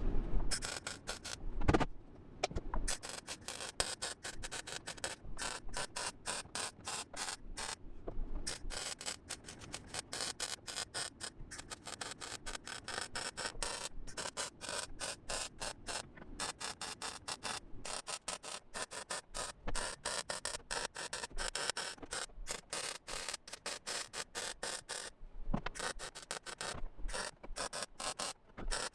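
Welder laying weld on car-body sheet metal: a rapid, irregular crackle in short runs, broken by brief pauses between stitches.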